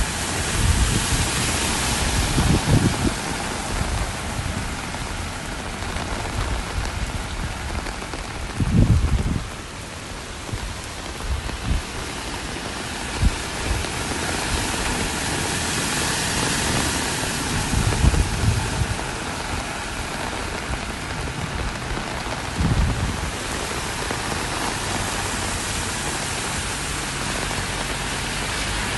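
Heavy rain pouring steadily onto a flooded street, with short low rumbles every few seconds.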